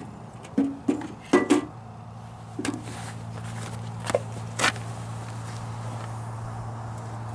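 Metal clinks and knocks, about seven in the first five seconds, as the bottom bushing, washer and nut of a truck cab mount are fitted onto the mount bolt by hand. A steady low hum comes in about a second and a half in.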